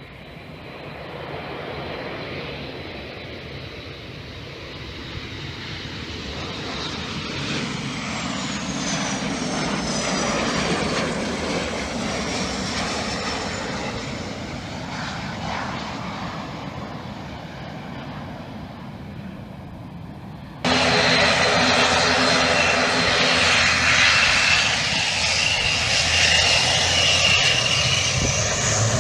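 A four-engine BAe 146/Avro RJ regional jet approaching and landing: its turbofan noise swells and passes with a falling whine, then slowly fades as it rolls out. About two-thirds of the way through the sound switches abruptly to a louder, steady drone with held tones from an ATR 72 turboprop's engines and propellers on the runway.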